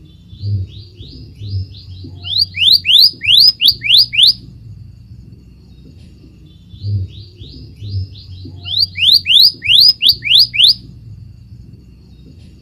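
Scarlet minivet singing: two phrases of quick rising whistles, about three notes a second. Each phrase starts faint and grows loud.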